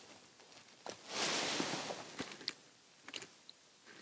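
Faint rustling, a soft hiss that swells for about a second, with a few light clicks and taps, from the angler's clothing and gear as he kneels jigging a rod at the hole.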